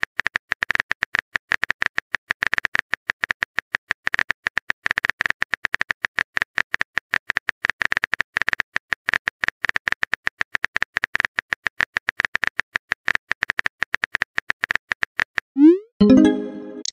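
Phone keyboard typing sound effect: a rapid, uneven run of short, crisp key clicks. Near the end comes a brief pitched pop-like sound effect that rises in pitch.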